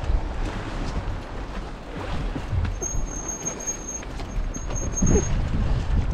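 Wind rushing over the microphone of a bike-mounted action camera, with a low uneven rumble of bicycle tyres over block paving. A thin, high, steady whistle sounds for about two seconds in the middle.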